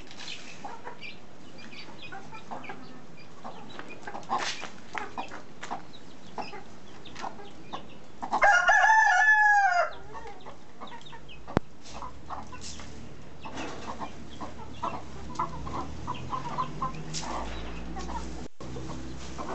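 A rooster crows once, a single cock-a-doodle-doo about a second and a half long roughly halfway through, with hens clucking softly here and there.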